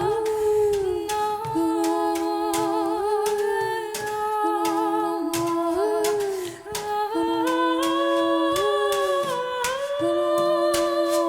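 Several voices singing an improvised, wordless a cappella piece, holding overlapping long notes that glide and waver, some with vibrato, with frequent short clicks over the top.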